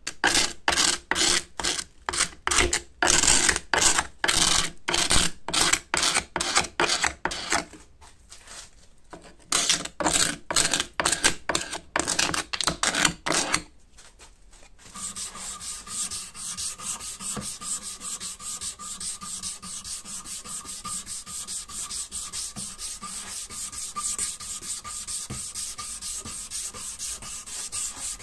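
Card scraper scraping the curved wooden handle of a walking stick in short, sharp strokes, about two or three a second, with a short pause partway. About fifteen seconds in it gives way to a quieter, fast, steady back-and-forth rasp of an abrasive strip being pulled around the wooden shaft.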